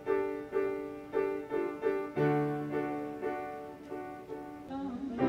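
Piano music: a string of struck chords, each ringing and fading, with a low bass note coming in about two seconds in.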